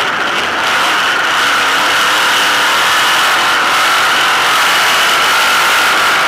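Sprint car's V8 engine running steadily at an even pitch, heard from a camera mounted in the car's cockpit.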